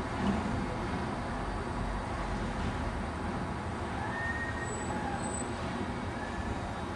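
Steady low rumbling of a slow-rolling train of replica early-railway stock on the track, with a few faint short squeals about four to five seconds in.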